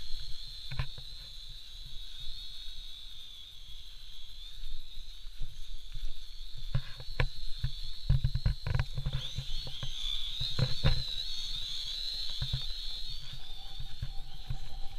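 FY326 Q7 toy quadcopter's brushed motors and propellers whining in flight overhead, a steady high-pitched buzz that wavers in pitch as the throttle changes, dipping and rising about two-thirds of the way through. Intermittent low rumbles sit underneath.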